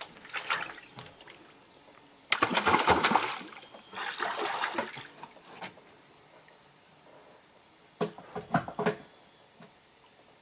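Water splashing at the side of the boat in several bursts: the loudest about two seconds in, another shortly after, and a quick run of splashes near the end. Under them runs a steady high drone of insects.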